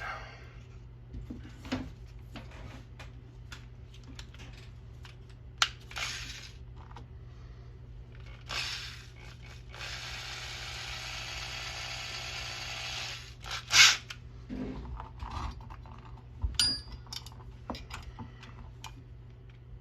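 Hand tools and small parts being handled on a workbench: scattered clicks, taps and knocks, with a steady whirring for about three seconds midway and a sharp click just after it.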